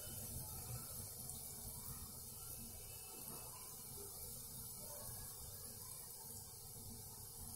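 Gulgula batter balls deep-frying in a kadai of hot oil, the oil sizzling and bubbling faintly and steadily.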